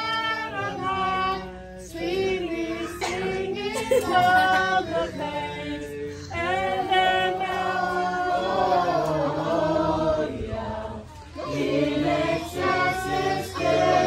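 A group of adults and children singing a Christmas carol together, with short breaks between sung lines.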